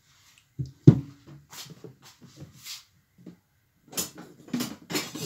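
Kitchen handling noises: a sharp knock about a second in, then scattered softer knocks and brief rustling, with a quick run of knocks near the end.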